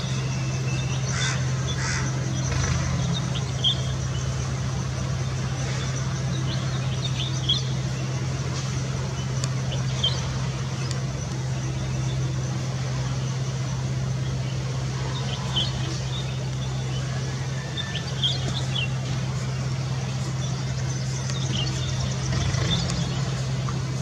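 Steady low hum under short, high bird chirps that come every few seconds.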